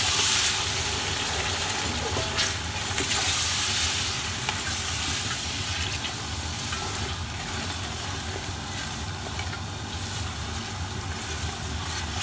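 Biryani masala of onions, tomatoes and spices sizzling in hot oil in a pot while being stirred and fried down, with a few sharp knocks in the first half.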